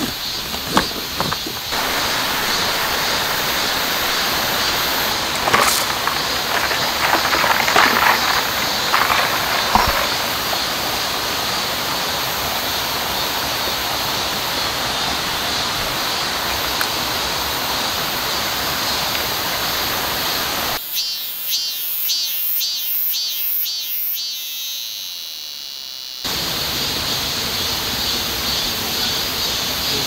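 Steady rushing of running water, with a few clicks of camping gear being handled at the start. For several seconds near the end the water noise drops out and rhythmic high-pitched insect chirping, about three pulses a second, is heard instead.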